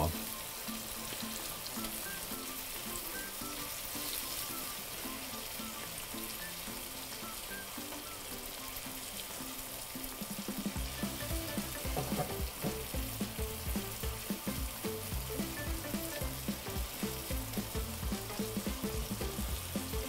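Shrimp frying in butter in a non-stick pan, a steady sizzle as they are stirred with a silicone spatula. Background music with a beat comes up about halfway through.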